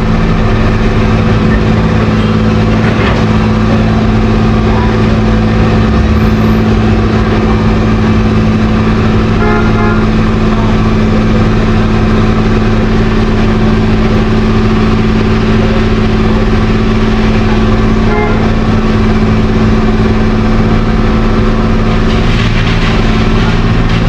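Heavy road-construction machinery engine running steadily at a constant speed: a continuous low, even hum with no revving.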